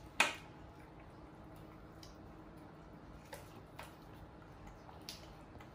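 A few short, sharp clicks over a faint steady room hum, the first and loudest about a quarter second in and four fainter ones spread through the rest.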